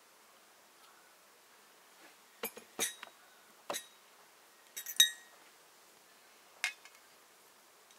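Stainless steel pan, lid and spoon clinking together: a scatter of sharp metallic clinks, the loudest about five seconds in with a short ring.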